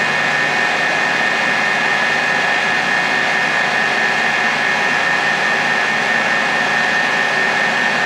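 DeVlieg 3H 48 Spiramatic CNC jigmill running: a steady, even machine noise with a constant high whine, unchanging throughout.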